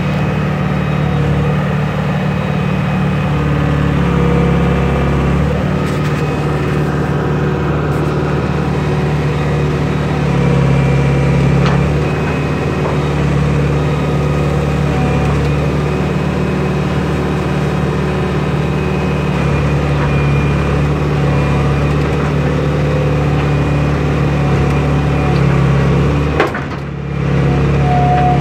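John Deere 490E excavator's diesel engine running while the bucket digs, its note stepping up and down every few seconds as the hydraulics take load. The sound briefly drops in level near the end.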